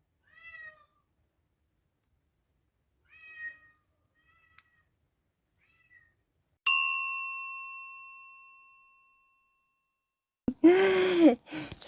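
A cat meowing: several faint, high, short mews in the first six seconds, then a louder, lower meow near the end. In between, a single bell ding rings out and fades over about two seconds.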